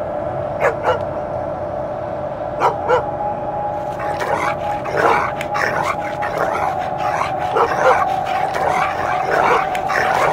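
Dog barking: two quick double barks, then a rapid run of barks and yips from about four seconds in, over a steady tone.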